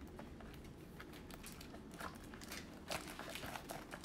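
Faint crinkling and crackling of cellophane shrink-wrap being torn and peeled off a sealed trading-card box by gloved hands, with a few slightly sharper crackles about two and three seconds in.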